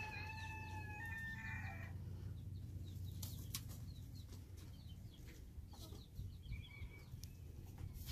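Hens dust-bathing in soil and ash, giving a drawn-out call over the first two seconds, then occasional short soft calls and a few brief scuffs.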